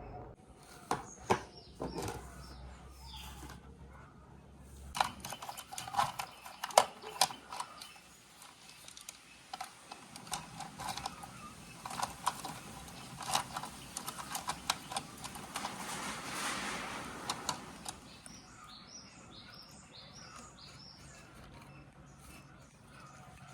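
Close-up handling of small objects: a series of sharp taps and clicks, a stretch of rustling about two thirds of the way in, then a run of soft, evenly spaced ticks.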